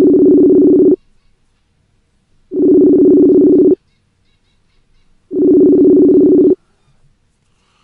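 Telephone ringback tone of an outgoing call: a steady two-pitch tone sounding three times, each about a second long with a pause of a second and a half between. The called phone is ringing and has not been answered.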